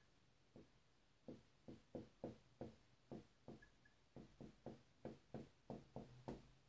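Dry-erase marker writing on a whiteboard: a run of faint, short strokes, about three a second, starting about half a second in.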